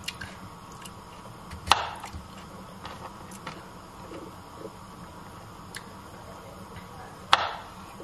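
Knife knocking on a plastic cutting board while slicing a cucumber: a handful of sharp, irregular knocks, the two loudest about two seconds in and near the end.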